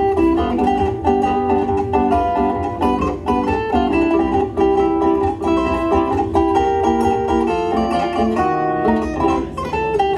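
Zither played with fingers and thumb: a quick run of plucked notes, a melody over chords.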